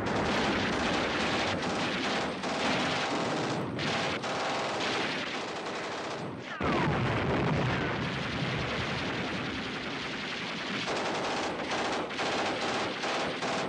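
War-film battle soundtrack: dense rifle and machine-gun fire crackling without pause. A sudden louder burst comes about six and a half seconds in, and the shots come closer together near the end.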